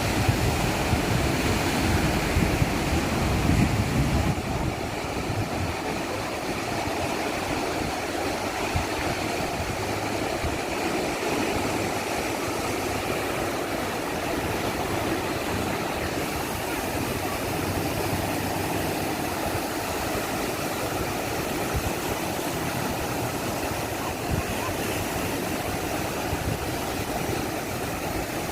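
Strong surf breaking on a beach, a steady rushing rumble, with heavier low buffeting in the first four seconds.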